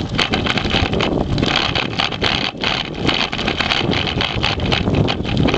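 Rattling vibration noise from a moving dog scooter, carried into the camera through its handlebar mount, a fast irregular clatter over a steady rumble, with wind buffeting the microphone.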